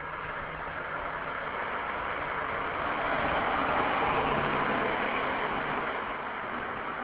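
A car passing along the street: tyre and engine noise swell to a peak about four seconds in and then fade, with a faint steady engine hum underneath.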